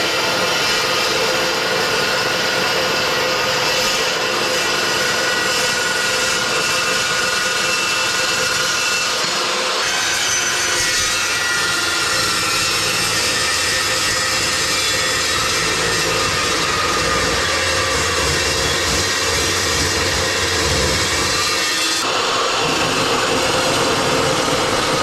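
Chop saw cutting steel angle iron, a loud continuous cutting noise with a steady motor whine that changes character about ten seconds in and again near the end.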